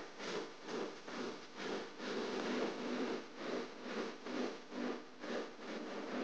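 Fishing reel being cranked against a heavy fish, a rasping whir that swells and fades about three times a second.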